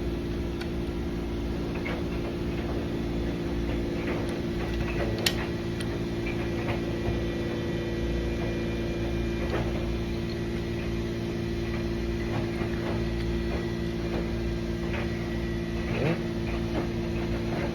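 Steady mechanical hum from room equipment such as air conditioning, with scattered small clicks and taps as push-bar lock parts are handled and turned, the sharpest about five seconds in.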